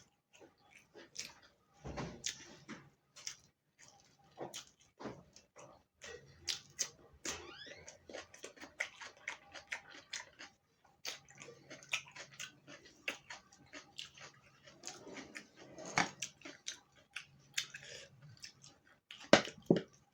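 Close-miked chewing and wet mouth sounds of a person eating, with many irregular smacks and clicks and a louder smack near the end.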